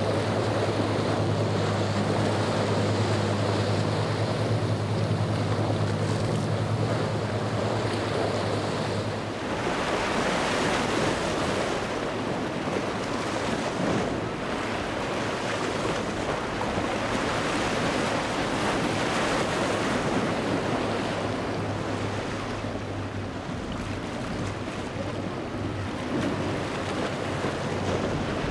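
Powerboats running at speed through breaking waves: a steady low engine drone over the rush of spray and surf, with wind buffeting the microphone. About nine seconds in, the drone drops away and the wave and wind noise carries on. Near the end a lower engine hum comes back as the Leopard 101 motor yacht runs through the chop.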